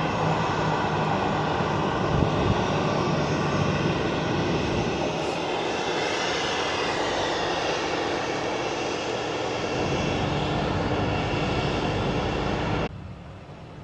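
Jet airliner engines running on the apron with a steady whine over a dense rumble, mixed with the low engine hum of a passenger apron bus driving past close by. The level drops away sharply near the end.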